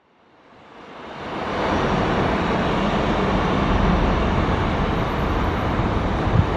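Steady jet-aircraft roar with a deep rumble underneath, rising from silence over the first two seconds and then holding steady.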